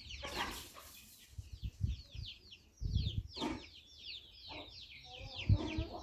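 Free-range country chickens clucking, over a constant chatter of short, high, falling chirps, several a second. Low thuds come and go underneath.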